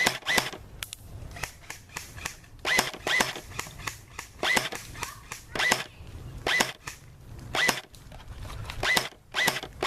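Airsoft gun firing single shots, about a dozen sharp cracks at irregular intervals, a few in quick pairs.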